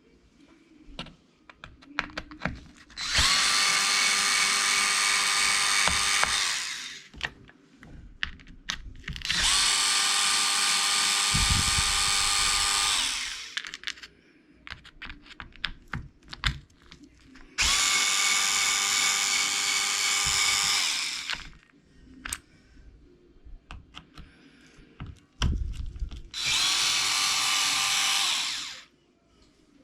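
Electric screwdriver running four times for about three to four seconds each, a steady motor whine that backs screws out of the RC truck's cover. Small clicks of handling come between the runs.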